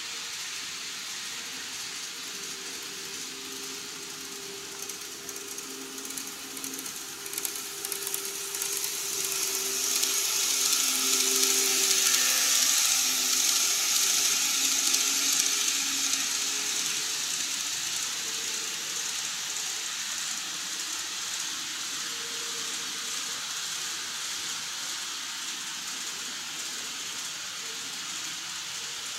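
KATO E233-series N-gauge model train running along the track, its small motor humming and wheels rattling on the rails; it grows louder as it approaches, is loudest as it passes close by around the middle, then slowly fades as it runs away.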